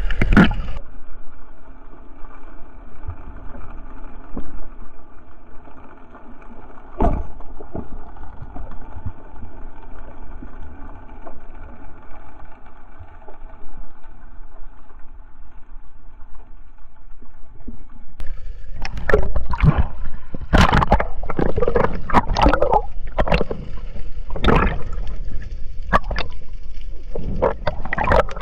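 Underwater sound on a night spearfishing dive: a steady muffled hum with one sharp click about seven seconds in, then from about eighteen seconds a loud run of bubbling, sloshing and knocking as the diver moves in the water.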